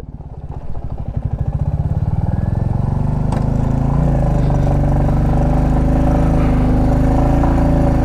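Motorcycle engine pulling up a steep mountain road: slow, pulsing beats at first, then the revs rise over the next few seconds and hold steady.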